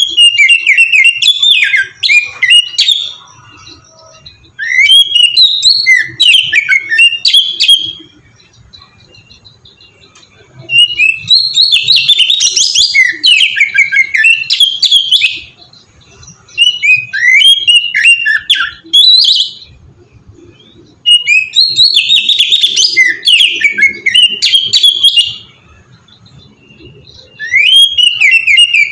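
Oriental magpie-robin (kacer) singing in full, flowing song. It repeats loud phrases of fast, varied whistled notes, each phrase lasting three to four seconds, with short pauses between them.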